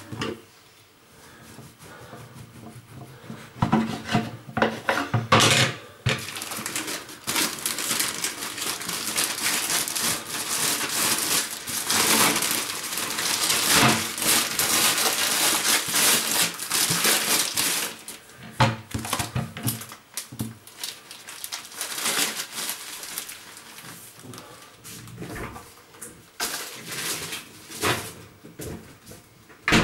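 Household things being handled and packed: scattered clatters and knocks of dishes and hard objects, with a long stretch of rustling and crinkling, like plastic or paper, through the middle.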